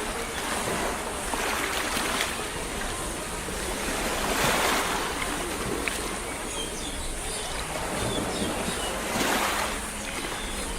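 Steady rushing noise that swells and fades three times.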